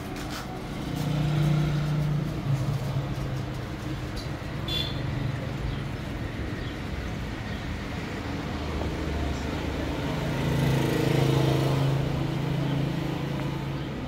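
Motor vehicle engines humming in traffic, swelling louder twice as vehicles pass or pull away.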